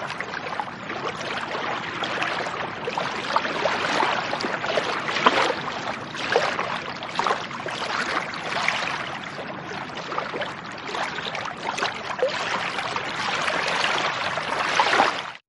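Lake water lapping and splashing in a continuous run of small, irregular splashes. It cuts off suddenly near the end.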